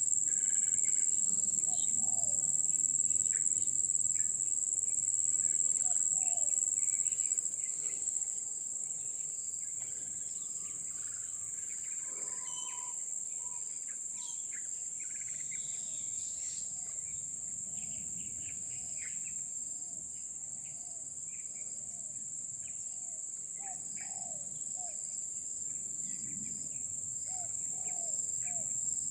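Steady high-pitched drone of insects, with scattered wild bird chirps and short calls over it, including a run of short repeated calls in the last few seconds.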